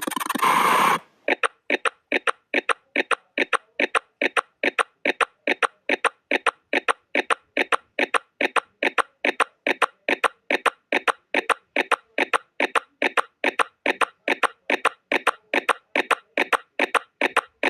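A dense burst of sound cuts off about a second in. Then a countdown timer's clock ticking follows, sharp even ticks about twice a second.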